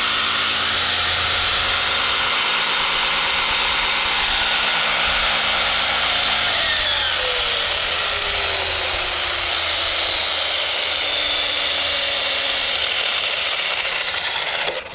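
Traxxas Stampede 4x4 RC truck's 4000kv brushless motor and drivetrain running flat out on their own with the wheels spinning free: a loud, steady whine and gear noise. A tone in it slides down in pitch about halfway through, and the sound cuts off suddenly near the end. The runaway throttle is one the owner puts down to a failed receiver.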